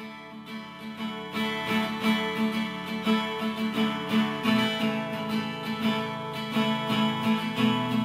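Intro theme music led by a strummed guitar.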